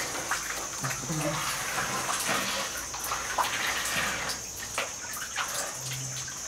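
Water splashing and trickling inside a well shaft.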